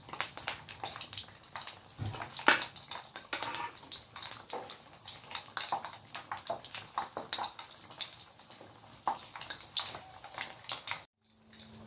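Oil crackling and sizzling in a wok as filled martabak parcels in spring-roll wrappers deep-fry, a dense, even crackle of small pops. It cuts out briefly near the end.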